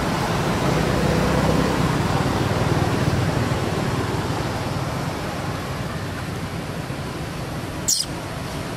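Steady rushing outdoor background noise, heaviest in the low range and easing off a little after about four seconds, with one sharp click about eight seconds in.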